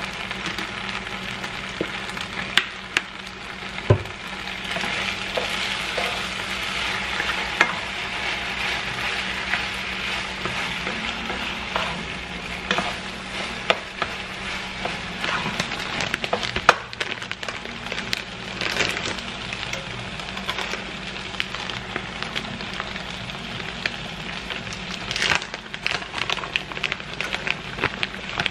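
A ground beef, Italian sausage, rice and stewed tomato mixture sizzling steadily in a large nonstick sauté pan, with a wooden spatula stirring through it and scattered clicks and knocks against the pan.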